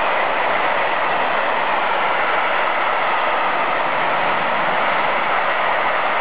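Freight train of railway tank wagons rolling past close by, a steady noise of steel wheels running on the rails.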